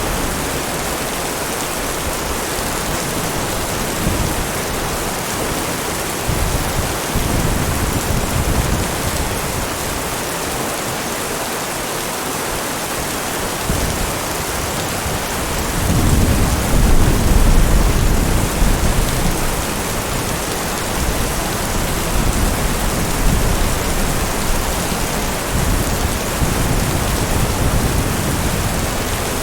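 Heavy rain falling steadily in a thunderstorm, with a low roll of thunder swelling up about halfway through and rumbling for a few seconds.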